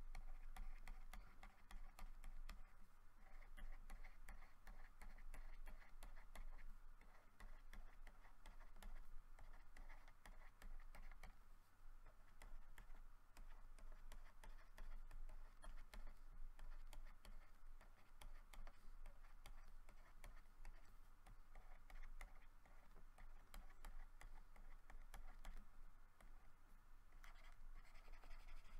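Faint, rapid clicking and scratching from computer input devices, such as a mouse, scroll wheel or drawing-tablet stylus, over a low steady electrical hum.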